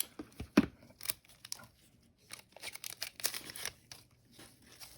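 A foil trading-card pack wrapper being torn open and crinkled by hand, in irregular crackles with one sharp rip about half a second in.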